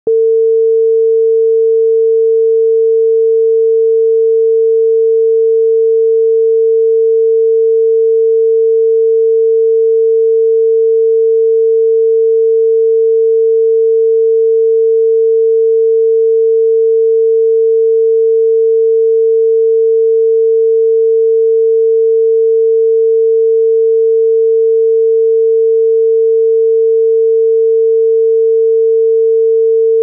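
Obsolete Austrian telephone dial tone (dial tone C): a single pure 450 Hz tone, held steady without a break, the signal that the line is ready for dialling.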